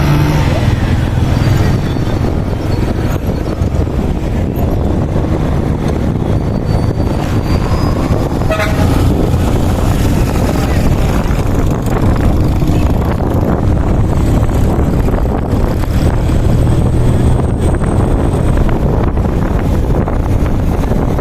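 Motor vehicle engine and road noise heard while riding along, steady throughout, with a short horn toot about eight and a half seconds in.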